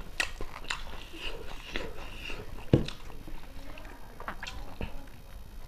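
Close-miked eating sounds: chewing and wet mouth clicks, with fingers squishing rice and curry on a banana leaf. One sharper thump comes a little under three seconds in.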